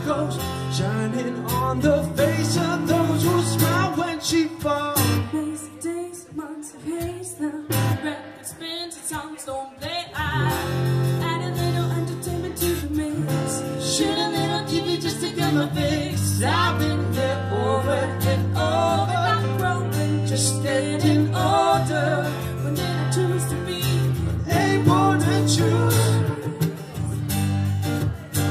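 Live acoustic band song: acoustic guitar strummed and picked under sung vocals. The music thins out briefly about six seconds in and fills back in around ten seconds.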